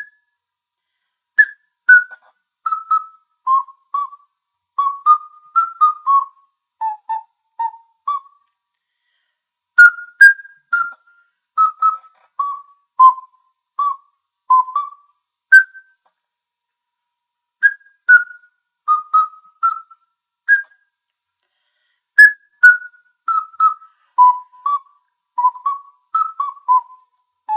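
Six-hole Songbird Ocarina (Legend of Zelda Hylian Shield model) playing a simple melody of short, pure notes, in phrases with brief pauses between them.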